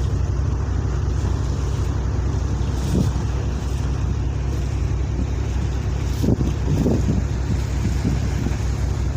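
Steady low engine rumble aboard a vessel, with wind buffeting the microphone and a few brief gusts.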